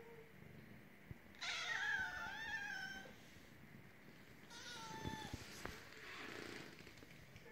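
A kitten meowing: one long, wavering meow about a second and a half in, then a shorter meow about five seconds in.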